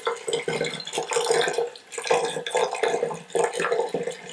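Rhubarb syrup pouring through a funnel into a glass bottle: a continuous, uneven splashing of liquid as the bottle fills.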